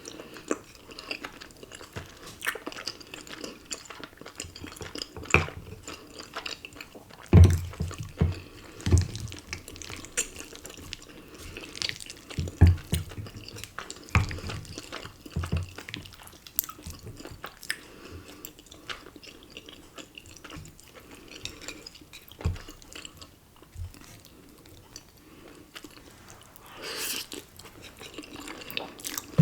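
Close-up eating sounds of cheesy ramen and rice cakes: wet chewing and slurping with many small clicks, and a run of soft knocks about seven to sixteen seconds in.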